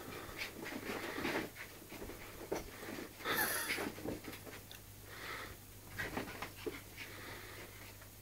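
West Highland white terrier puppy panting and breathing hard during play with a cat, in irregular bursts, the loudest a little over three seconds in.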